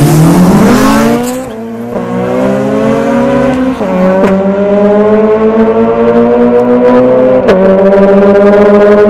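Honda B-series inline-four engine at high revs, pulling hard through the gears. A quick climbing rev comes in the first second and a half. Then a steady rising note drops sharply at upshifts about four and seven and a half seconds in.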